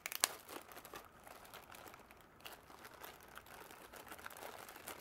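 Clear plastic bag crinkling as hands handle and unwrap a cordless tool battery, with a sharp crackle just after the start and fainter rustling after it.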